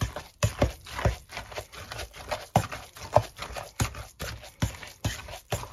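A hand potato masher pounds curd cottage cheese in a stainless steel bowl, making a series of uneven thumps and knocks, about two or three a second.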